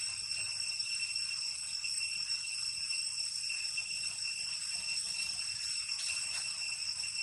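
Insects shrilling steadily in a continuous high-pitched tone with fainter higher tones above it, over a faint even hiss of forest ambience.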